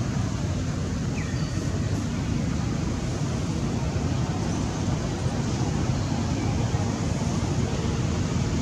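Steady low rumbling outdoor noise, even throughout, with a few faint, brief high-pitched chirps over it.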